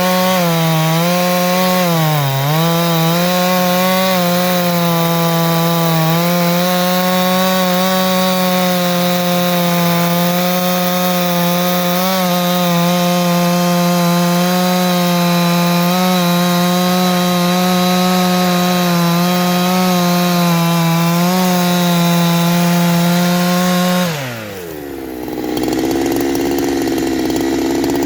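Farmertec G372XT two-stroke chainsaw, a Husqvarna 372XT clone, held at full throttle cutting wood. It bogs down briefly a few times early on, then holds steady high revs for about twenty seconds before the throttle is released and it drops to idle near the end.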